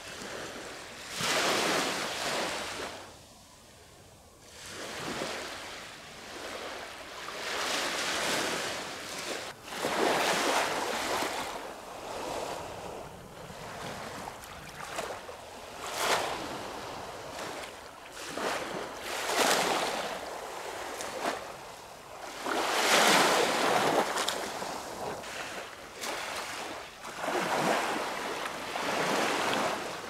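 Sea waves washing in, a surge of rushing water every few seconds.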